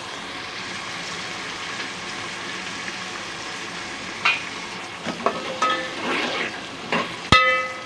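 Sliced onions sizzling in hot oil in a metal pot, a steady frying hiss. From about halfway, a slotted metal spoon stirs them, scraping and clinking against the pot, with one loud ringing clank near the end.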